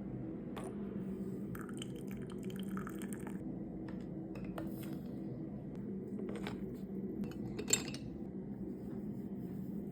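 Chinese tea ware clinking lightly, with a stretch of tea being poured about two seconds in and one sharper clink near the end, over a steady low hum.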